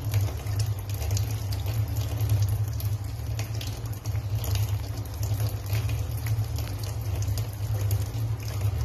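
Tap water running into a sink with uneven splashing as taro leaves are rinsed and rubbed under the stream. A steady low rumble runs underneath and is the strongest part of the sound.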